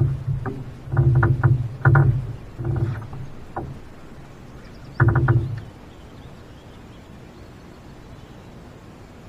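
Electric trolling motor on a bass boat humming in short bursts as it is switched on and off, several times in the first few seconds and once more about five seconds in; afterwards only a low steady background.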